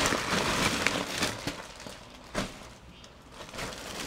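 A bag of yarn crinkling and rustling as the yarn is pulled out of it, uneven and in fits and starts, with a few light taps.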